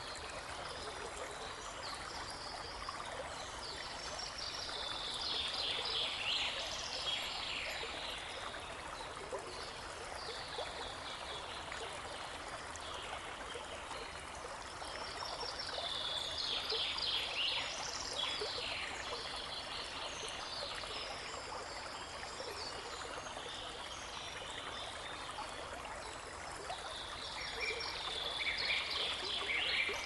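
Babbling brook running steadily, with a songbird singing three long bouts of rapid high notes over it.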